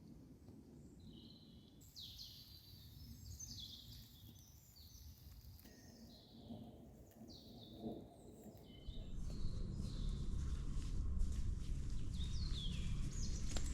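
Wild birds singing in a forest: repeated short, falling chirping phrases, fairly faint. About two-thirds of the way in, a louder low rustling with scattered clicks starts underneath.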